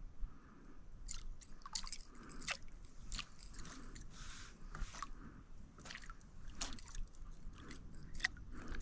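Faint, irregular small wet clicks and splashes of water around a kayak, a few every second.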